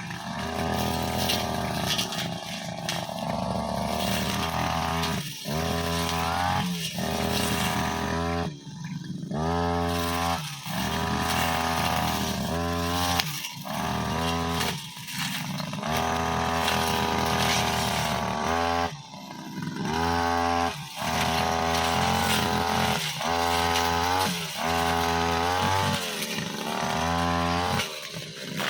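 Brushcutter engine revved up and dropping back over and over, about a dozen times, as its metal blade cuts through tall grass and tough saplings.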